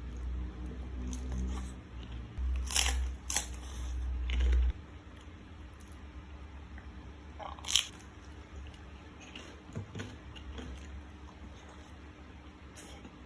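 Close-miked eating: sharp crunching bites and chewing, with the loudest crunches about three seconds in and again near the eight-second mark, and smaller clicks between. A low rumble runs under the first five seconds.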